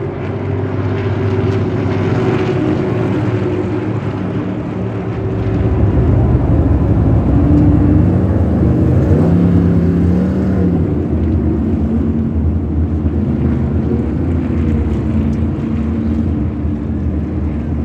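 NASCAR Cup Series stock cars' V8 engines running at race speed, engine notes rising and falling as cars go by. The sound swells about five seconds in.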